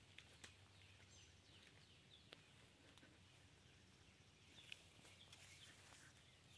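Near silence: faint outdoor background with a few soft clicks and faint high chirps.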